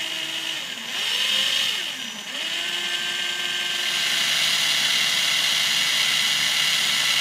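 Kobalt cordless drill running, spinning a small 3D-printed bobbin to wind 42-gauge copper wire onto it. Its motor whine sags and climbs back about two seconds in, then holds steady.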